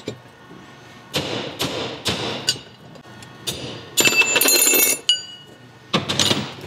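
Hammer blows on a steel race punch driving out the pinion bearing race of a Toyota third member, about two sharp metallic strikes a second. About four seconds in comes a burst of ringing metallic clatter, then a few more strikes near the end.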